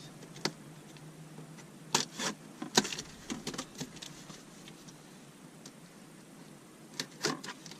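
Cardboard shipping box being opened at one end by hand: scattered sharp clicks and taps of flaps and tape, in a cluster a couple of seconds in and again near the end.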